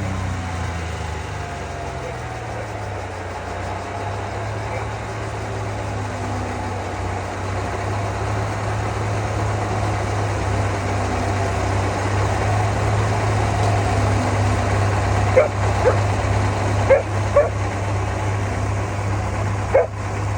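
Engine powering the sawmill running steadily, its pitch dropping over the first couple of seconds as it settles to a low idle. Near the end come five short, sharp pitched sounds, in two pairs and then one more.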